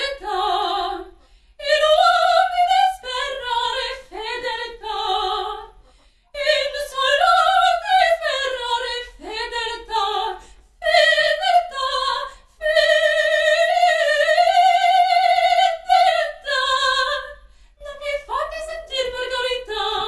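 Female operatic voice singing without accompaniment, in phrases with vibrato broken by short pauses, with one long held note about halfway through.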